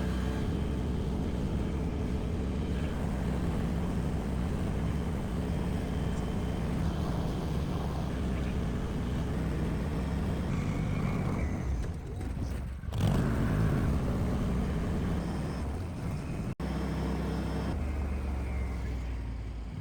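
Argo amphibious ATV's engine running steadily as it drives, with a short dip in the sound about twelve seconds in.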